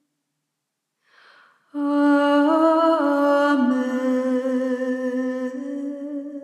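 Silence, then a short audible intake of breath, then a solo female voice holds one long Gregorian chant note, stepping briefly up in pitch and then settling lower.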